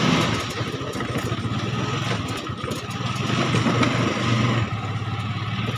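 Auto-rickshaw's small engine running as it drives along, heard from inside the open passenger compartment.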